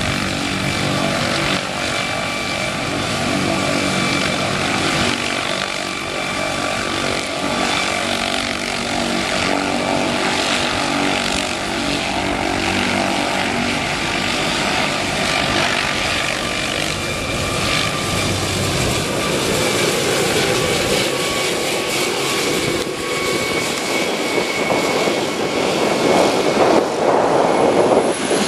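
MD Helicopters MD600N running: its turbine engine and six-blade main rotor, with a steady high whine over the rotor sound, as it lifts off and climbs away. The sound grows louder near the end.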